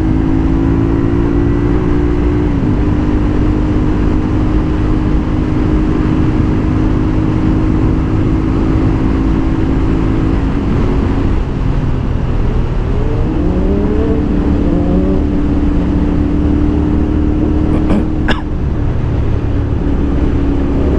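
CFMoto 450SR's parallel-twin engine running at steady cruising revs under road and wind noise, heard from the saddle. About ten seconds in the revs drop, then climb again in a few quick rising pulls before settling back to a steady note, with a brief click near the end.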